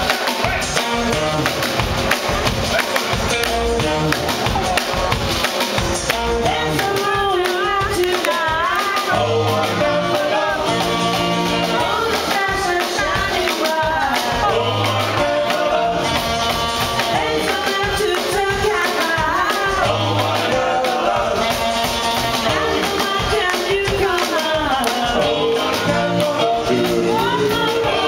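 Live rock and roll band playing, with a woman and a man singing over drums, upright bass and saxophone, to a steady beat.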